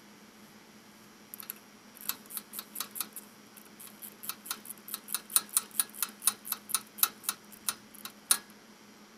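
A rapid run of sharp metallic clicks, about four to five a second, that starts about two seconds in, grows louder and ends with a loud click near the end. It comes from the go-kart's CVT drive clutch being worked by hand to change the drive belt.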